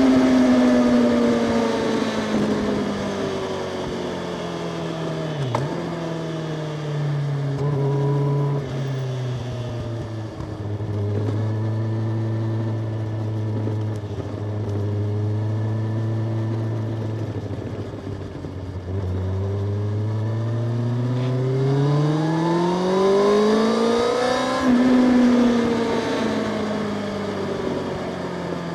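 Kawasaki Ninja ZX-6R inline-four engine and exhaust under way: revs falling over the first few seconds, holding low and steady through the middle, then climbing to a peak about three-quarters of the way through before dropping off again.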